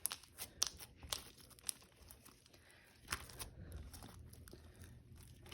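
Semi-floam slime with foam balls being squished and stretched by hand, giving soft crackles and small popping snaps, a few sharper ones in the first two seconds and again about three seconds in.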